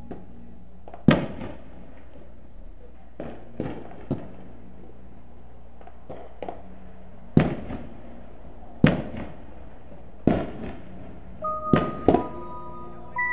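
A series of about nine sharp, drum-like hits at irregular spacing, each with a short echoing tail, over a faint steady low hum.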